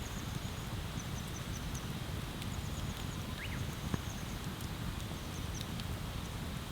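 Wood bonfire crackling, with scattered sharp pops over a steady low rush. Short runs of high chirps come and go through it.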